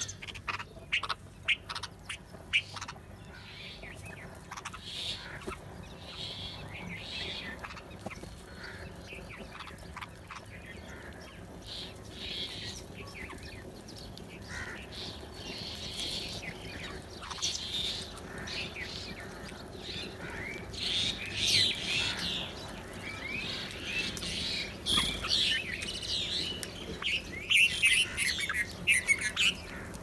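A flock of house crows cawing and red-vented bulbuls chirping as they feed together, with many short overlapping calls. The calls grow louder and busier about two-thirds of the way through and again near the end.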